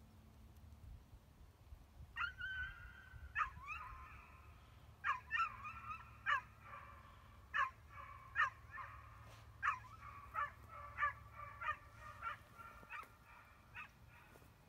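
A flock of geese honking. About two seconds in, repeated overlapping calls begin, roughly one or two a second, and they continue nearly to the end.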